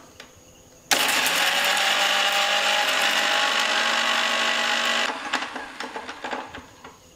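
Electric mixer grinder running in a short burst, grinding green chillies, garlic, ginger, whole spices and salt dry in its steel jar to a coarse paste. The motor starts abruptly about a second in, runs steadily for about four seconds, then cuts off and winds down with a brief rattle.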